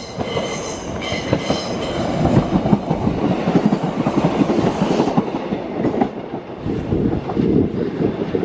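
British Rail Pacer diesel railbus passing through the station, its wheels clattering over the rail joints, with a high whine in the first couple of seconds.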